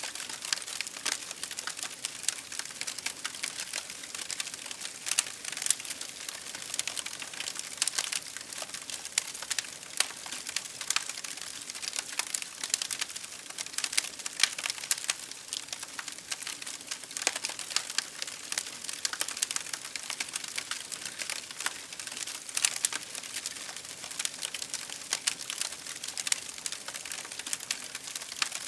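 Campfire crackling: burning firewood giving a dense, continuous run of small sharp snaps and pops, with a few louder pops scattered through.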